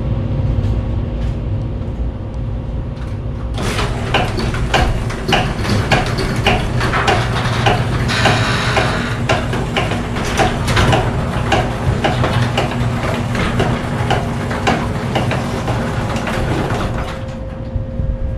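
Sectional garage door being raised by its opener, its rollers rattling and clattering along the tracks for about thirteen seconds. It starts a few seconds in and stops near the end, over a steady low hum.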